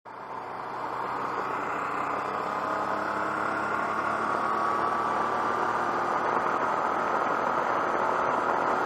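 Motorcycle under way at road speed, heard from a camera mounted on the bike: steady wind rush over the engine's drone, the engine note slowly rising. The sound fades in over the first second or so.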